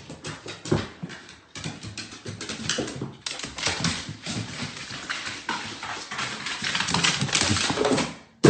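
A dog moving about, its claws clattering irregularly on a hard floor, with brief breaks in the sound.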